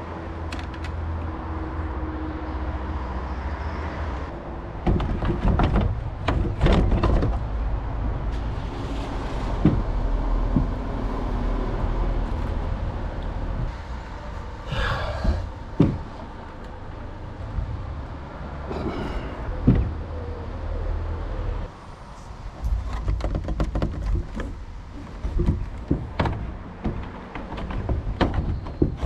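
Knocks, clunks and scrapes of a Maxxfan Deluxe roof fan being handled and pushed into its frame on a van roof, against a steady low rumble.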